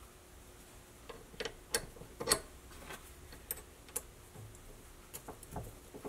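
Light, irregular metal clicks and taps from small steel press tooling being handled and an Allen key working the set screw in an arbor press ram. The clicks come at uneven intervals, the loudest about two seconds in.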